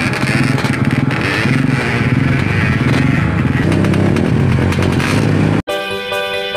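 Trail motorcycle engine running, its low note shifting up and down with the throttle. It cuts off abruptly about a second before the end, giving way to background music.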